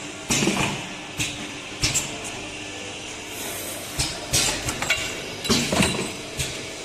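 Double-head pipe chamfering machine running with a steady hiss, with about eight sharp metallic clanks and clinks as short stainless steel tubes are handled and loaded at it.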